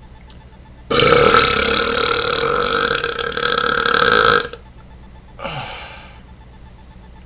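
A man's deliberate loud belch lasting about three and a half seconds, followed a second later by a short, quieter belch that drops in pitch.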